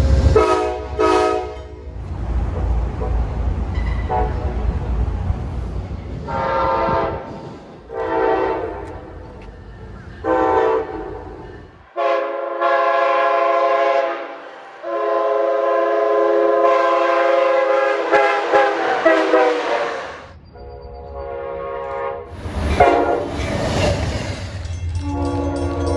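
A series of locomotive air horn blasts, each sounding a chord of several notes. Some blasts are short and a few are held for several seconds. Passing trains rumble low at the start and again near the end, and the sound changes abruptly where separate recordings are cut together.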